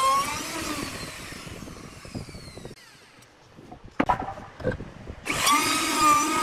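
Handheld electric router's motor winding down after being switched off, its pitch falling away over a few seconds. A few sharp wooden knocks follow, then the router is switched back on about five seconds in and runs steadily at full speed.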